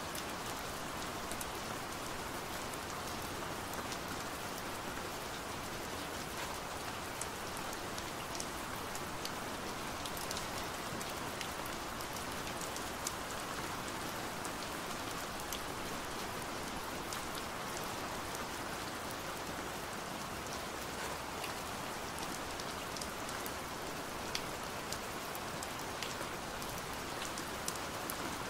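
Steady rain falling on a window pane, an even hiss with scattered sharp taps of single drops.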